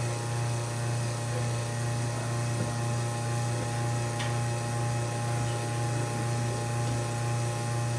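Reverse-osmosis booster pump motor running with a steady electric hum. The pump has been called on by the dropped tank float switch to start making water.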